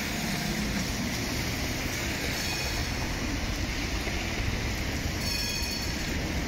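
Articulated tram approaching along street tracks: a steady running rumble from the wheels on the rails, with two brief faint squeals from the wheels.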